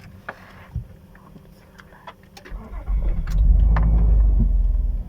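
A few light clicks, then the 2008 Nissan Murano's 3.5 L V6 cranks and starts about three seconds in and keeps running with a steady low rumble. The start tests a repair for multiple-cylinder misfires: oil-fouled spark plugs cleaned and the ignition coils refitted.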